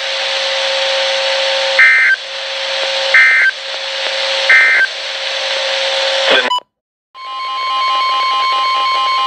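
Weather radio hiss with a steady hum, broken by three short warbling data bursts about a second and a half apart: the SAME end-of-message code that closes an alert. After a brief dropout, the steady 1050 Hz weather radio alert tone starts, announcing the next warning.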